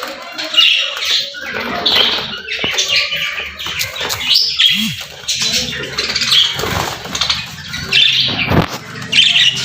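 Pet budgerigars chirping and squawking, short high calls following one another about once a second.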